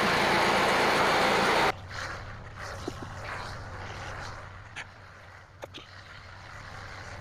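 Portable sawmill's engine running steadily and loudly, cut off abruptly about two seconds in. Then a much quieter stretch with a low hum and a few faint ticks and knocks.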